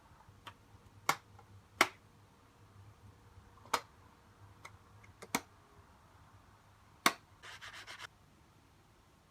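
Sharp plastic clicks and taps from hands working on a mechanical keyboard: five single clicks spaced a second or more apart, then a quick run of about six lighter clicks near the end.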